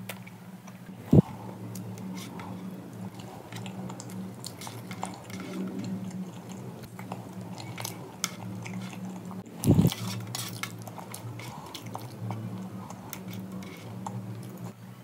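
A person eating with their fingers from a stainless steel compartment tray: wet chewing and finger-licking, with small clicks and clinks of the metal tray. Two loud thumps, about a second in and near ten seconds, over a steady low hum.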